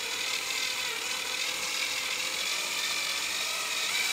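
Cordless DeWalt screwdriver running steadily, its motor whine wavering slightly in pitch as it drives a screw into the plastic of a car-radio dash kit.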